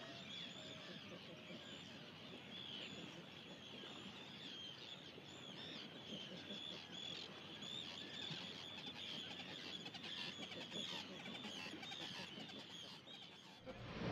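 Faint birds chirping, many short calls overlapping throughout.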